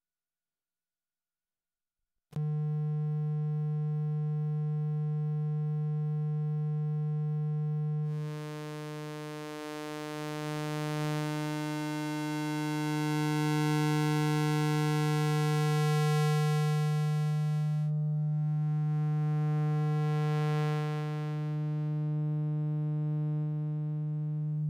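Circuit-bent Synthesis Technology E-950 wavetable oscillator sounding a steady low synth tone that starts abruptly about two seconds in. The pitch holds while the timbre shifts as its waveform changes: buzzy like a sawtooth, much brighter from about eight seconds in, and mellower near the end on a rectified sine.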